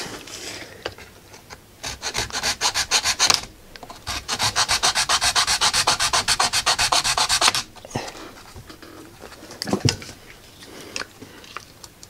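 Flat hand file rasping back and forth on a Ridgid cordless drill's plastic housing, widening the trigger-switch opening. It comes in two runs of fast, even strokes, about seven a second, the second run lasting several seconds. A few light clicks follow as the parts are handled.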